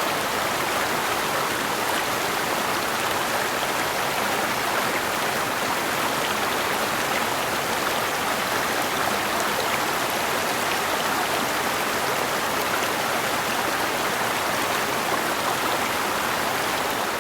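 Forest creek flowing over rocks, a steady rushing and babbling of water with no change in level.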